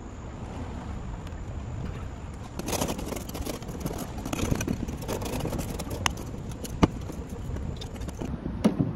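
Hand scraper scraping residue from around a light-mounting hole on a school bus's metal roof, in scratchy strokes, with a few sharp clicks. A steady low rumble of road traffic lies underneath.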